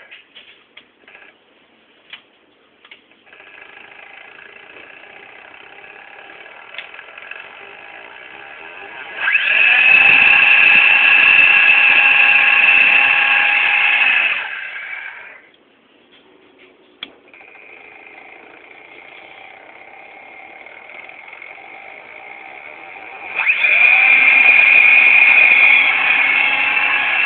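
CD-ROM drive motor run by a PIC microcontroller controller, whining with a few steady high tones. After some clicks it runs quietly, then about nine seconds in it gets much louder for about five seconds. It stops briefly, runs quietly again and turns loud once more near the end.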